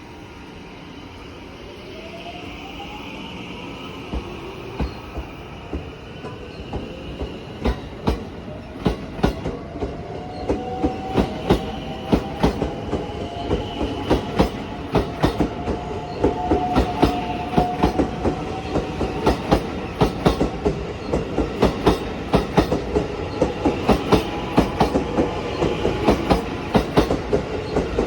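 JR 223 series 2000 subseries electric train pulling out and accelerating. Its inverter-driven traction motors whine in rising tones while the wheels click over rail joints, the clicks coming faster and louder as it picks up speed.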